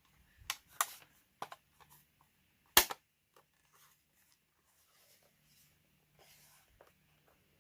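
Plastic clicks from handling a Brother P-touch H200 label maker as its tape cassette and casing are fitted: a few light clicks, then one sharp snap about three seconds in, followed by faint fumbling.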